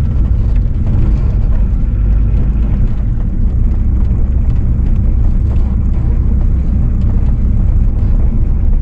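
Steady low rumble of wind buffeting the microphone, loud and unbroken.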